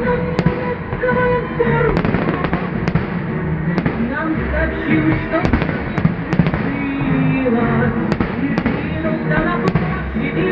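Fireworks salute: about ten sharp bangs roughly a second apart, heard over music.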